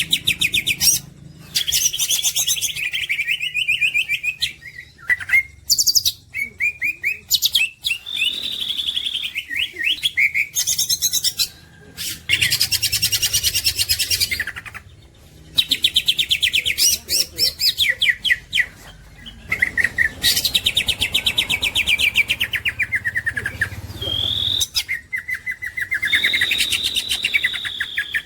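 A cucak ijo (green leafbird) sings a long, varied song: rapid trills and chattering phrases mixed with clear whistled notes, broken by a few short pauses.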